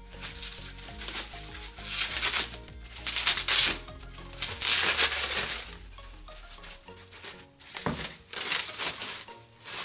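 Plastic and bubble-wrap packaging rustling and crinkling in repeated bursts as metal parts are unwrapped, over soft background music.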